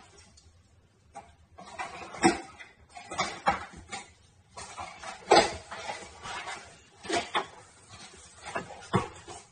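Cardboard shipping box being handled and opened by hand: irregular knocks, scrapes and rustles of the box and its flaps.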